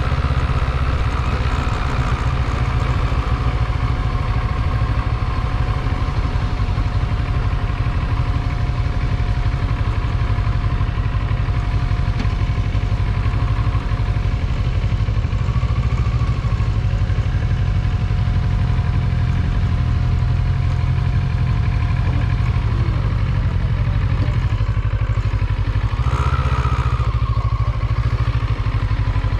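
Motorcycle running steadily while being ridden, with a dense low rumble throughout and a thin steady tone that stops about 22 seconds in.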